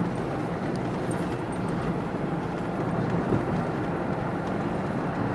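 Steady road and engine noise of a car driving along a road.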